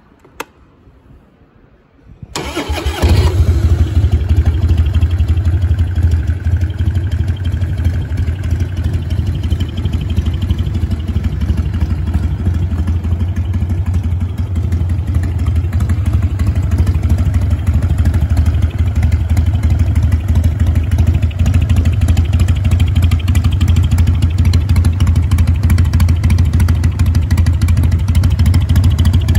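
1999 Harley-Davidson FXSTB Night Train's V-twin, breathing through a Mikuni HSR carburettor and S&S air cleaner, with a genuine-option muffler. A click comes near the start, the engine catches about two seconds in and then idles steadily.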